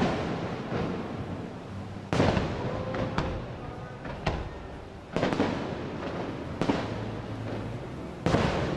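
Aerial fireworks shells bursting in a display: a sharp bang every one to two seconds, seven in all, each followed by a rolling rumble. The loudest come at the very start and about two seconds in.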